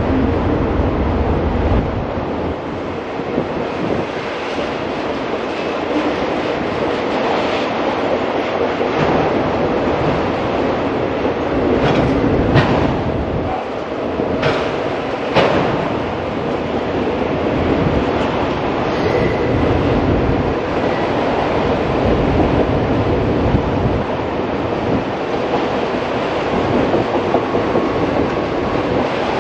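Freight train cars rolling past on the track: a steady, loud rumble of wheels on rail, with a few sharp knocks about halfway through.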